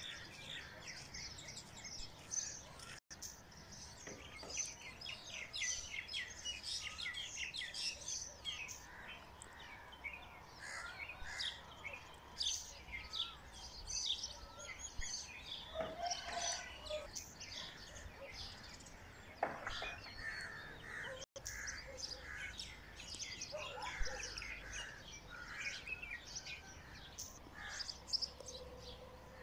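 Many small birds chirping and calling at once in a busy morning chorus, with rapid overlapping high chirps throughout. The sound drops out for an instant twice, about 3 and 21 seconds in.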